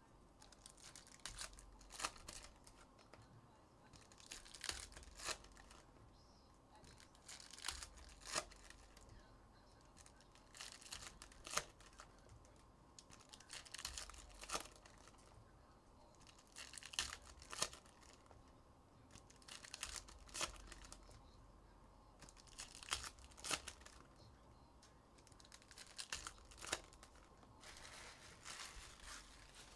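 Foil trading-card pack wrappers being torn open and crinkled, faint, in short bouts about every three seconds.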